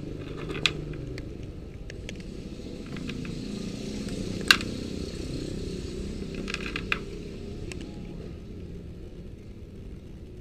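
Cat eating dry kibble off a metal roof: scattered sharp crunches and clicks, the loudest about halfway through and a quick cluster later on, over a steady low rumble.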